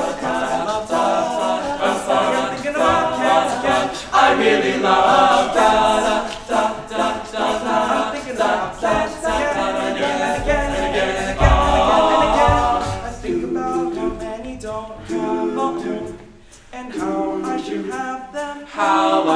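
Male a cappella group singing in several-part harmony with no instruments. A few low thumps come about ten to twelve seconds in.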